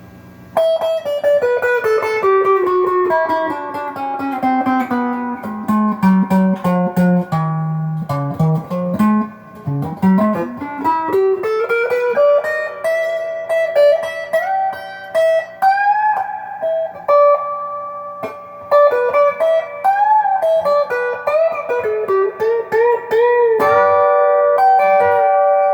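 GearIt Telecaster-style electric guitar on its neck pickup, played dirty through an overdrive pedal. A single-note run falls over the first ten seconds and then climbs again, followed by bent notes with vibrato and a held chord near the end.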